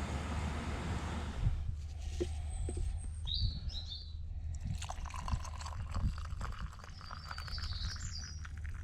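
Small birds chirping in woodland, in short bursts about three seconds in and again near the end. A steady rushing hiss cuts off about a second and a half in, and light clicks and knocks follow.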